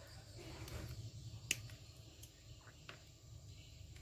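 Pliers prying at the metal casing of a used dry-cell battery: a few faint clicks and scrapes, the sharpest about one and a half seconds in.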